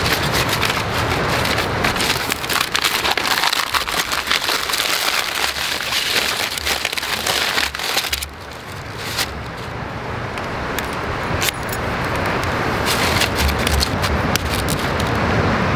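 Waves washing onto a pebble shore: a steady rushing hiss full of fine clicking from the stones, easing for a moment about eight seconds in and then building again.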